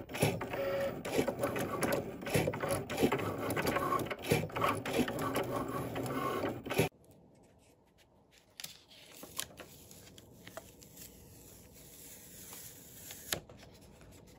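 Cricut Maker cutting machine running as it cuts cardstock, a dense mechanical motor sound with many quick clicks, which stops abruptly about seven seconds in. After that, only faint handling sounds and a few light taps as the cut cardstock is peeled from the cutting mat.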